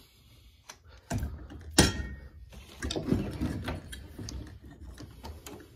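Knocks, clicks and shuffling as a radio-controlled scale crawler truck is handled and set down on a workbench. One sharp knock about two seconds in is the loudest.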